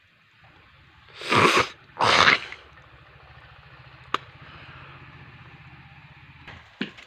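Two loud rushes of noise, each about half a second long, come a little over a second in. Near the end, sharp chops of a blade cutting into a tree branch begin, about two a second.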